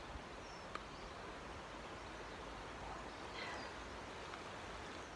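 Soft rustling of soil being dug through by hand for potatoes in a container, over a faint steady outdoor hiss, with a small click about three-quarters of a second in.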